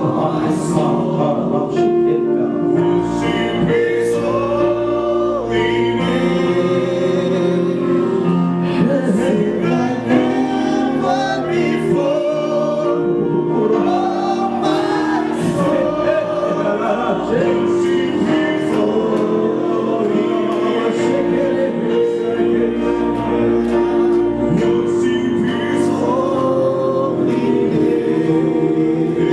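Worship music with group singing: voices sustain a slow melody over held chord tones.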